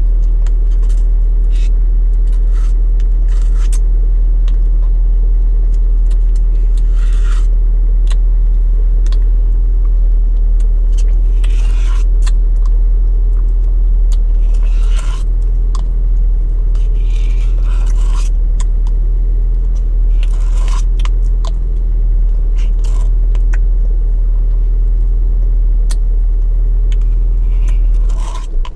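Close-up eating sounds: chewing and mouth clicks with short rustles, over a loud steady low hum that cuts off near the end.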